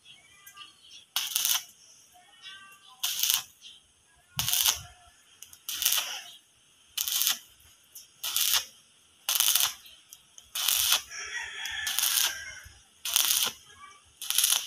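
Stick (arc) welder crackling in short bursts, about one every second and a half, as the electrode is struck and broken off again and again along a joint in the steel gate frame.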